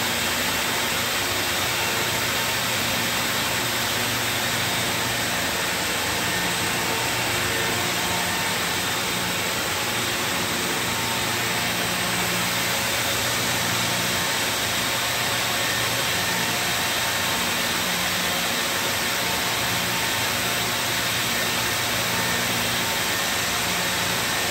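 Circular knitting machine running: a steady mechanical whir with a broad hiss and a faint low hum underneath.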